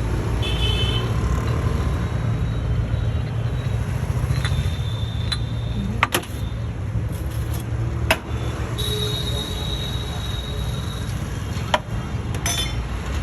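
Busy street ambience: a steady low traffic rumble, with a few sharp clicks or knocks scattered through it and a steady high tone lasting a couple of seconds past the middle.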